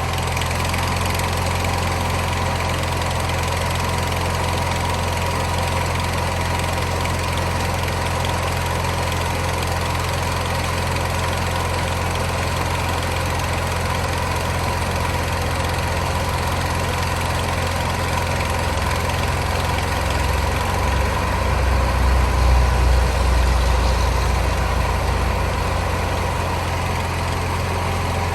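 John Deere 400 garden tractor engine running steadily. A deeper, louder rumble swells for several seconds about two-thirds of the way through.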